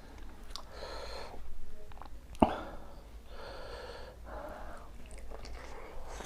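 A man breathing heavily in loud, drawn-out breaths between bites, with one sharp click about two and a half seconds in.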